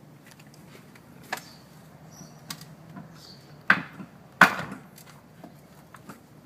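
Entry door swinging shut under a door closer whose arm bolt is loose: a light click, then two sharp knocks under a second apart as the door meets its frame and latches.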